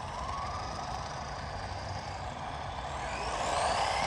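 Electric RC truck running, its RS-540 DC motor whining over a rushing tyre noise. From about three seconds in, the whine climbs in pitch and grows louder as the truck speeds up.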